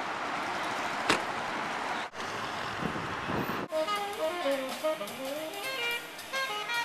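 Steady street traffic noise with one sharp click about a second in, broken off abruptly twice; from about three and a half seconds in, a melodic instrument plays a wavering tune with pitch glides.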